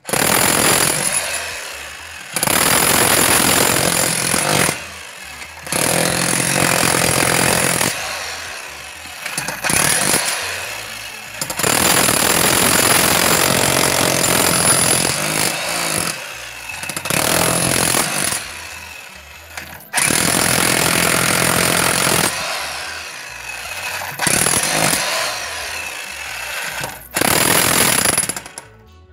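TOTAL TH213006 electric demolition breaker, a 1,300 W chipping hammer, hammering its chisel bit into a concrete wall. It runs in repeated bursts of one to four seconds with short pauses between, a high steady whine over the rapid blows.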